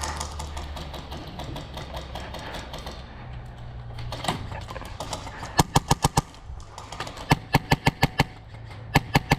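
Airsoft guns firing in short rapid bursts of sharp cracks, about eight to ten shots a second, with fainter scattered shots earlier.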